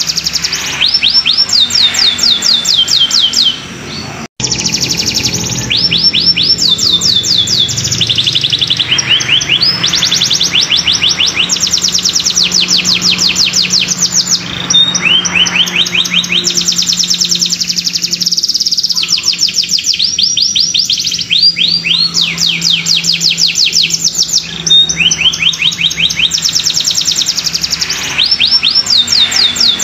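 Domestic canary singing a long, nearly continuous song: rapid trills of fast repeated falling notes, one roll running into the next with only short breaks. The song briefly drops out about four seconds in.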